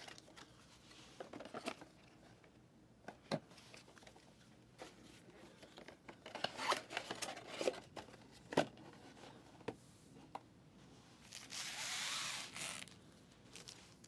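Trading card packaging being handled: scattered soft clicks and crinkles, then a longer rustle, like wrapper or plastic being torn, from about eleven and a half to thirteen seconds in.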